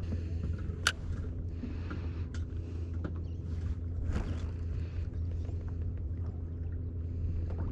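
Steady low rumble of wind and water around a fishing kayak on open sea, with a sharp click about a second in and a fainter one about four seconds in.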